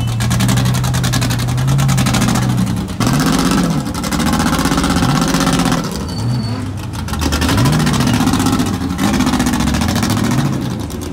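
Off-road race car engines revving in repeated bursts, the pitch rising and falling every second or so, as Ultra4 rock racers crawl up a boulder obstacle under load.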